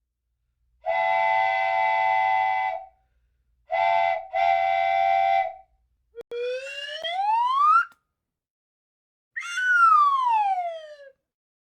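Whistle sound effects: a long steady toot, a short one and another long one, then a whistle gliding up in pitch and, after a pause, one gliding down.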